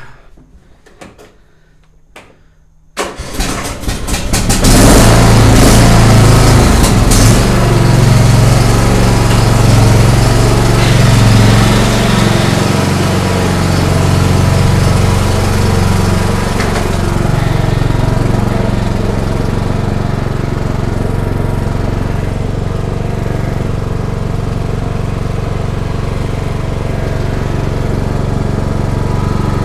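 Cub Cadet XT1 riding mower's engine starting about three seconds in, after a few light clicks, then running steadily and easing slightly in level partway through.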